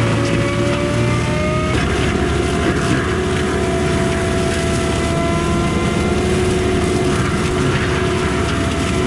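Kubota SVL95 skid steer's diesel engine and hydraulics running steadily and loudly, with a whine whose pitch shifts just under two seconds in.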